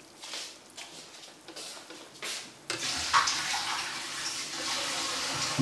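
A pot of fish soup coming to a boil: after a quieter start with a ladle stirring, a steady bubbling rush of boiling broth sets in about halfway through and holds.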